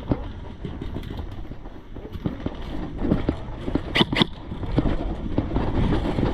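Low rumble of wind and movement on a body-worn action camera's microphone, with two sharp airsoft gun shots in quick succession about four seconds in.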